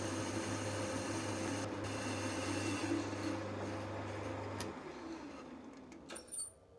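Metal lathe running with a steady motor hum, switched off about two-thirds of the way through and winding down, followed by a couple of sharp clicks near the end.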